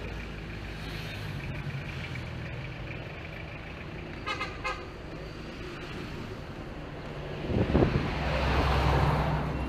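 Road traffic: a motor vehicle's engine running steadily, a quick burst of about four horn beeps about four seconds in, then a louder engine swelling up near the end.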